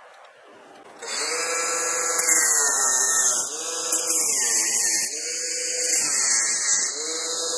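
Angle grinder with a cut-off disc starting about a second in and cutting through a steel threaded rod, with a loud hiss of grinding metal. Its motor pitch sags and recovers about four times as the disc bites into the rod and eases off.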